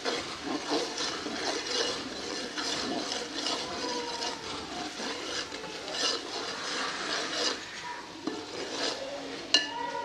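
A steel ladle stirs and scrapes through thick frying tomato-onion masala in a large aluminium pot, in a run of repeated strokes. Near the end the ladle knocks once against the pot with a short metallic ring.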